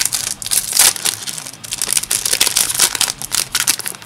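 Foil Yu-Gi-Oh booster pack wrapper crinkling as hands tear it open, a dense, irregular run of sharp crackles.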